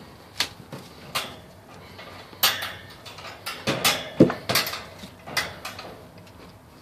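Black wire dog crate rattling and clinking as it is handled: a dozen or so irregular sharp metallic clanks, the loudest a little past the middle.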